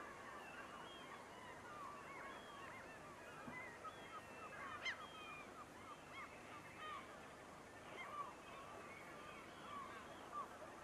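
A distant flock of waterfowl calling: a faint, continuous chatter of many short, overlapping calls, with one sharper call about five seconds in.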